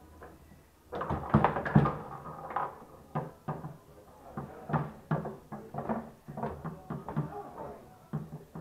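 Foosball game on a wooden-sided Mascher table: a fast, irregular run of sharp knocks and clacks from the ball and the rods, starting about a second in.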